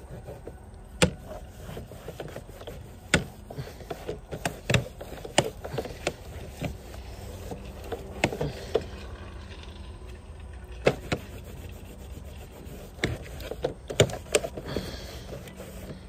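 Cloth rag scrubbing vinyl siding, a rough rubbing noise broken by irregular sharp knocks against the panels, wiping off driveway sealcoat that rain spattered before it cured.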